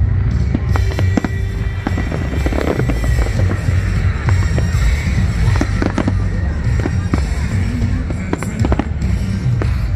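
Fireworks finale: a rapid, irregular run of bangs and crackling shell bursts over loud music.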